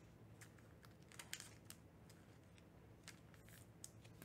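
Faint clicks and light rustles of trading cards being handled: cards slid off a stack and set down on a pile, about eight small ticks scattered over a few seconds.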